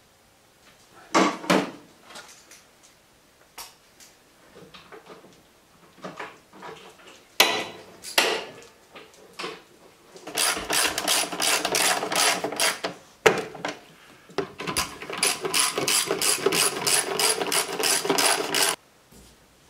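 Hand ratchet wrench clicking in two long runs, several clicks a second, as bolts on an ATV's rear rack are turned. Scattered knocks and clunks of tools and parts come before.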